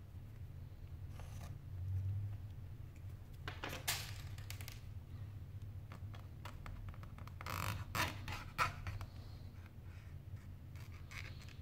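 A thin prying tool scraping and clicking along the edge of a Sony Xperia Z5's frame as the phone is taken apart. It comes in a few short bursts a few seconds apart, the loudest around two-thirds of the way through, over a steady low hum.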